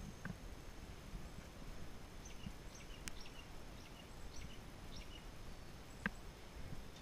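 Quiet outdoor ambience over a low rumble, with faint short bird chirps scattered through the middle. A single sharp click about six seconds in.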